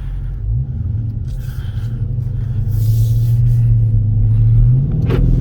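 Dodge Charger Scat Pack's 392 (6.4-litre) HEMI V8 running at low revs, with a steady deep note that rises slightly about half a second in and again near the end.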